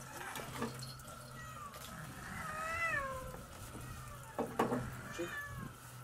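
Several cats meowing as they beg for fish scraps, one long meow about halfway through falling in pitch. A few sharp knocks a little after four seconds in are the loudest sounds.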